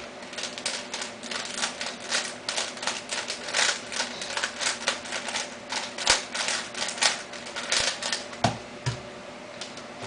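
A 3x3 Rubik's cube being scrambled by hand: a fast, irregular clatter of plastic clicks as the layers are turned. The clicks thin out after about eight seconds, with a couple of dull knocks.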